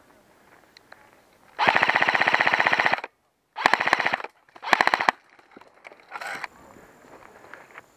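Airsoft rifle firing on full auto in rapid bursts. A long burst of about a second and a half is followed by two shorter bursts, then a fainter short burst near the end.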